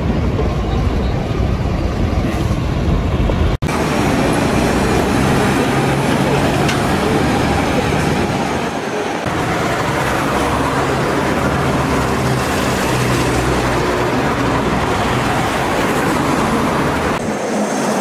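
City street traffic with diesel buses: a bus passing on the road, then after a sudden cut a steady low engine rumble over traffic noise.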